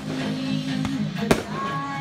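A single aerial firework bursting with a sharp bang just over a second in, over music playing in the background.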